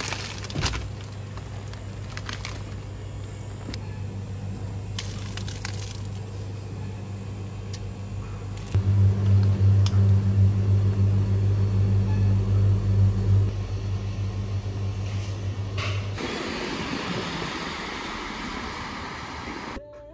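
Steady low hum from a shop's refrigerated display cases, their compressor and fans running. It grows much louder for several seconds in the middle, with scattered clicks and crackles of packaging being handled. Near the end the hum gives way to an even hiss.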